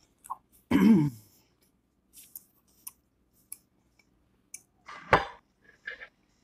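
A person clears her throat once, briefly and falling in pitch, about a second in, then faint scattered clicks of a fork against a glass plate and a sharp knock about five seconds in.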